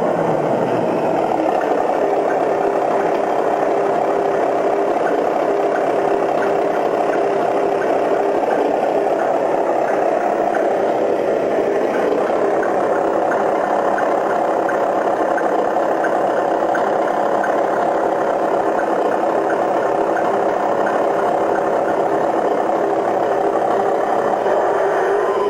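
Aftermarket sound module for an RC truck playing a truck engine sound at a steady idle through a small speaker, with almost no deep bass.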